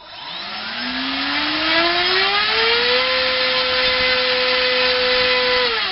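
Turnigy D2826 2000kV brushless motor spinning an APC 7x5 electric propeller on a thrust stand, powered from a 3S battery. It starts from rest with a whine that rises in pitch for about three seconds and then holds steady at top speed. Near the end it is cut and winds down, falling in pitch. The motor is drawing a lot of current.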